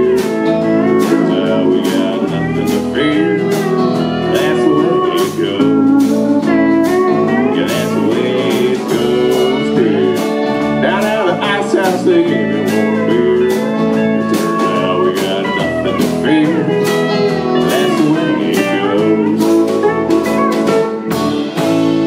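A live country band playing: pedal steel guitar with sliding notes over electric guitar, bass guitar and drums keeping a steady beat.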